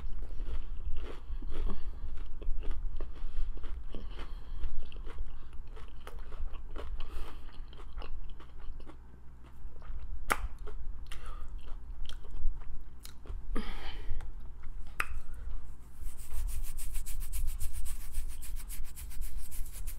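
Close-miked mouth sounds of someone chewing and biting into a fried-chicken meal: wet smacks and crunchy clicks over a steady low hum. In the last few seconds a fine, rapid crackle sets in.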